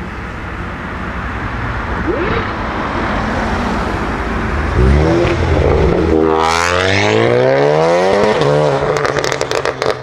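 Tuned, stage 2 Seat Leon Cupra ST with an upgraded TTH 650 turbo accelerating hard past at close range, its turbocharged 2.0-litre four-cylinder rising steadily in pitch for about three and a half seconds. Near the end it comes off the throttle into a quick run of sharp exhaust crackles.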